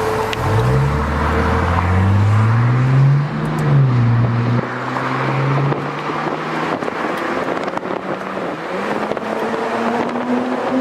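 Audi A6 C6 3.2's V6 engine, with its muffler deleted, accelerating hard: the pitch climbs for about three seconds, dips at a gear change, climbs again, then eases off about four and a half seconds in and settles into a steady drone.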